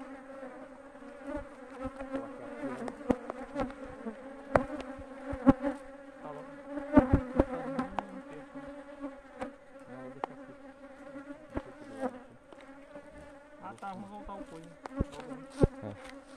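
Honeybees buzzing around an open brood frame in a steady hum, with scattered sharp clicks and knocks from the knife and hands working the wooden frame, the loudest about four and a half, seven and fifteen seconds in.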